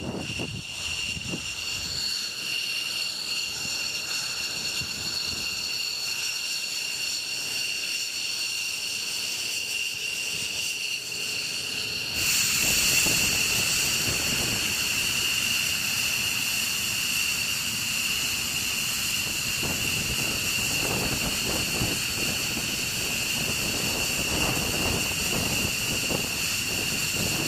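F-15E Strike Eagle's twin turbofan engines whining steadily over a hiss. About twelve seconds in the sound jumps suddenly louder and brighter, as the engines run at close range on the ramp.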